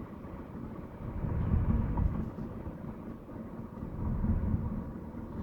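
Low rumble of road and engine noise inside a moving car's cabin. It swells louder about a second in and again near four seconds.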